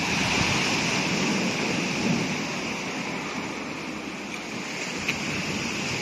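Surf breaking and washing over a rocky shore, with wind gusting on the microphone.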